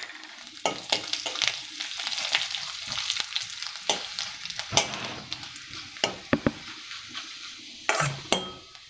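Cumin seeds, bay leaves and dried red chillies sizzling in hot oil in a stainless steel kadai as a tempering, the cumin spluttering. A steel ladle stirs them, scraping and knocking against the pan with sharp clicks several times.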